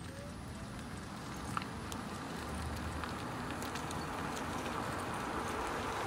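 Steady outdoor rushing noise, such as wind and road noise, growing slowly louder, with a few faint clicks.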